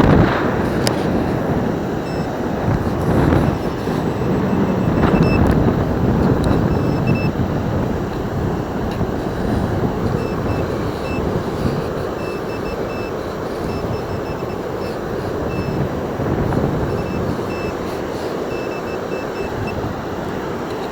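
Nokta Makro Simplex metal detector giving short, high beeps in irregular clusters as it sweeps over a target, against steady wind and surf noise on the microphone.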